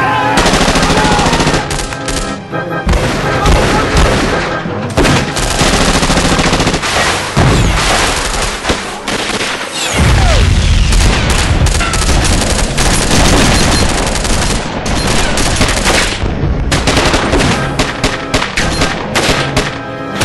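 Movie shootout: rapid bursts of automatic rifle fire mixed with single gunshots, dense throughout, with a deep boom about ten seconds in.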